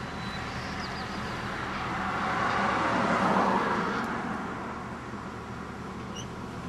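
Road traffic: a vehicle passes, its noise swelling and fading around the middle, over a steady low engine hum.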